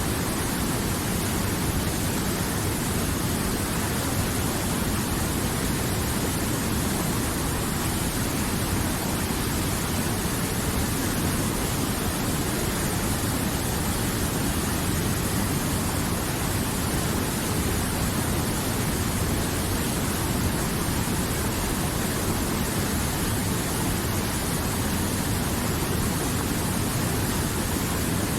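River water flowing and rushing steadily, an even noise with no breaks.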